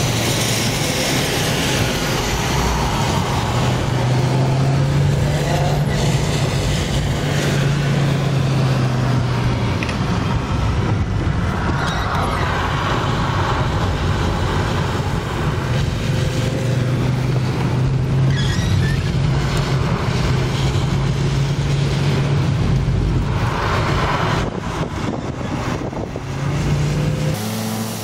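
Car engine running at steady speed, its pitch rising and falling gently, heard from inside the car over the steady hiss of tyres on wet tarmac.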